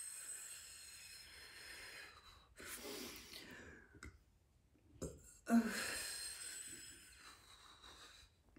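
A woman breathing slowly and deeply: three long breaths, with a short pause about four seconds in.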